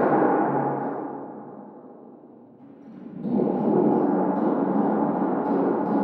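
A tall hanging metal thunder sheet, flexed by a motor, giving a thunder-like metallic rumble. The rumble dies away over the first two seconds or so, then swells back sharply about three seconds in and holds.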